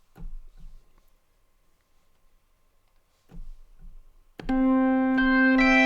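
About four seconds in, a sampled electronic organ patch starts playing: a held low note sustained under chord notes that change above it.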